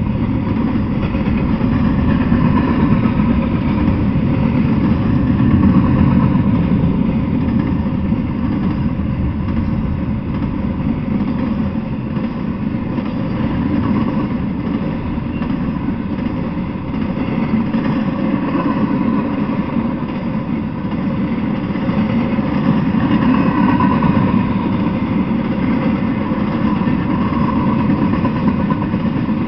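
Intermodal freight train of double-stack container cars and trailer-carrying spine cars rolling past, a steady loud rumble of steel wheels on the rails.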